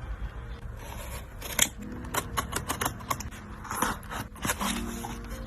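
Crinkling, scraping and clicking of a parcel's packaging being handled and opened, with soft background music coming in near the end.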